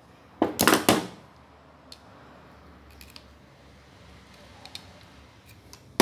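Hands working a thin wire on a washing machine's suspension rod: two short bursts of scraping and rustling, about half a second in and again at the end, with a few light clicks between.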